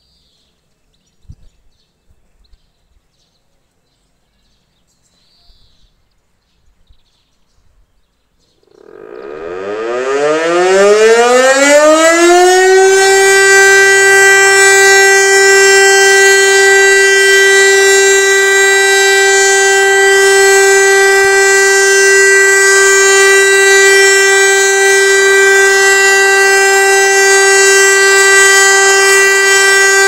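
VEM DS 977 electromechanical motor siren starting up about nine seconds in. Its pitch rises for about four seconds, then holds one loud, steady tone: the continuous test tone of a siren test.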